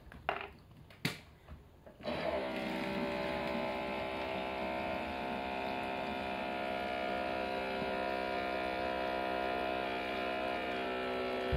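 A steady electrical hum with many even overtones, like a mains-powered motor or appliance. It starts suddenly about two seconds in, holds at an even level, and cuts off near the end.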